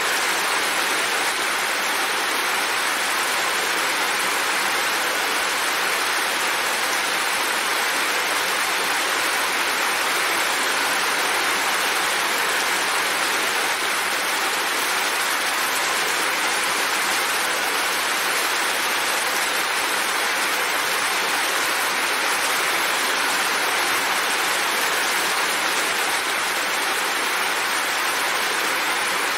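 Steady rain: an even hiss without pauses or separate drops standing out.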